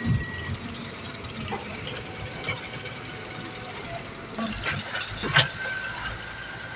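Excavator at work: a low running sound with several sharp metal knocks, the loudest about five seconds in, followed by a thin high steady tone lasting about a second.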